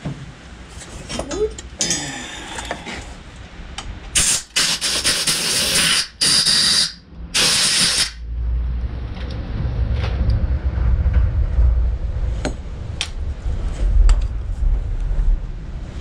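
Compressed air from a blow gun in four short hissing bursts, starting about four seconds in, followed by a low, steady rumble.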